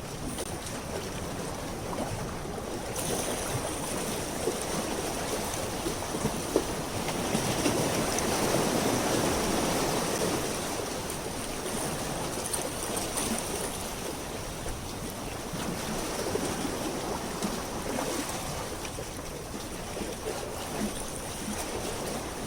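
Seawater washing and lapping at the water's edge, swelling louder for a few seconds in the middle, with a faint steady high whine from about three seconds in.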